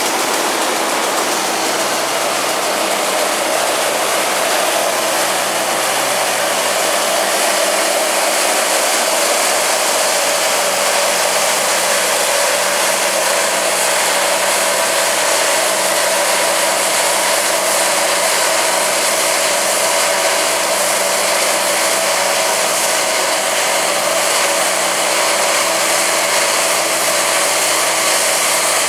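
Rostselmash Vector 420 combine harvester running at work, a steady loud whirr of its threshing machinery with a dense hiss from the straw blown out the back.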